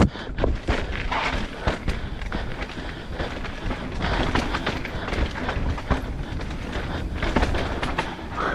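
Enduro motorcycle ridden over a rocky trail: the engine running under changing throttle, mixed with a constant rough rushing noise and many sharp knocks and clatters from the bike hitting rocks.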